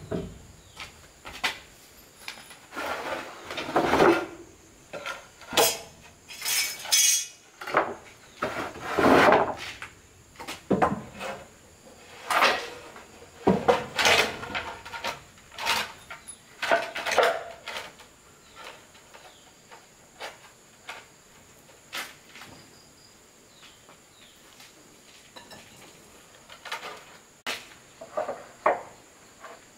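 Irregular knocks, clinks and clattering of hard objects being handled by hand, busiest in the first eighteen seconds and sparser after. A steady high insect trill runs underneath.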